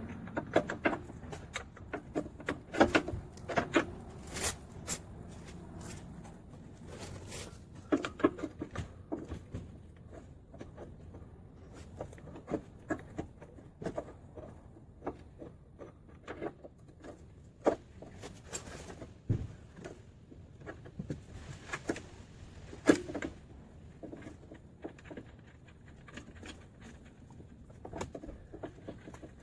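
Irregular clicks, clinks and knocks of hand tools and metal parts being handled during car repair work, with a few sharper knocks scattered through.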